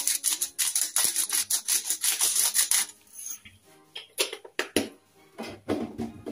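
Spice dispenser shaken or ground over a plastic bowl of pasta salad: a rapid, even run of scratchy clicks that stops about three seconds in. A few scattered knocks and clinks follow.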